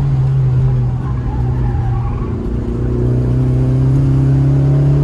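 BMW E36 323is straight-six engine running at fairly steady raised revs. It eases off briefly about a second in, then picks back up and climbs slightly near the end.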